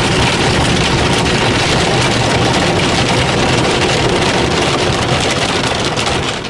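Water spray from a Ryko Softgloss XS rollover car wash beating on the car's windshield and body, heard from inside the cabin as a loud, steady hiss over a low machine hum. It cuts off near the end.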